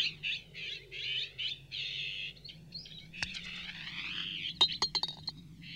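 Birds chirping and trilling in the background. Near the end come a few quick sharp clicks, a golf ball dropping into the cup.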